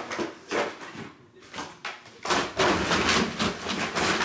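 Hands working open a trading-card box: a few short knocks and taps, then, from about two seconds in, a loud stretch of rustling and scraping packaging noise.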